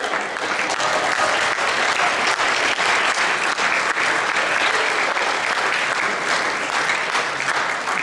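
Audience applauding: dense, steady clapping that breaks out all at once.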